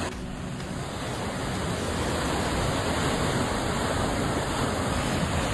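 Rushing floodwater: a steady, even roar of fast-moving water that swells slightly over the first couple of seconds.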